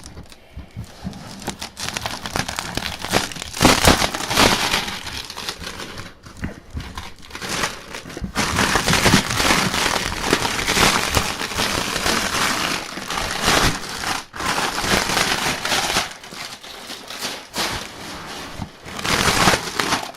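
Plastic shrink wrap being torn and crumpled off a box close to the microphone: loud, irregular crinkling and crackling.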